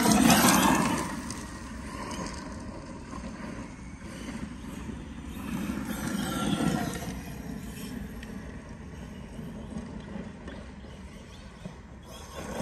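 ARRMA 6S brushless RC monster truck driving off across gravel: motor whine and tyres on loose stones, loudest at the start and fading as it runs farther off, with another swell about six seconds in.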